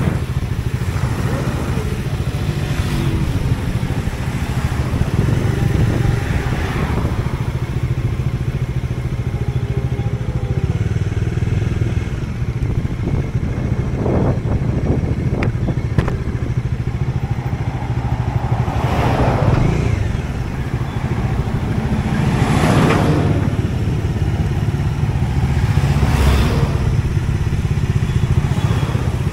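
Motorcycle riding at road speed: a steady low engine and wind rumble, with several loud rushes as vehicles pass close by, the clearest three in the second half.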